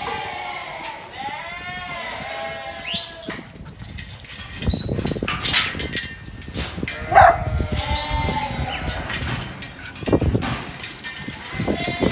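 Sheep bleating repeatedly, with scattered knocks and clatter from about four seconds in as the packed sheep are moved by a working dog.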